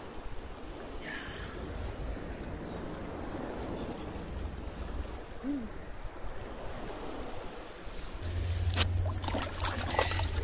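Sea waves washing and trickling against the shore below, a steady rush of water. A low rumble and a few sharp clicks come in near the end.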